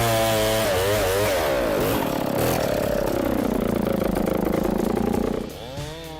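Chainsaw engine revving up and down, then settling to a lower, steadier pitch under load for about three seconds. Near the end it drops off and revs up again.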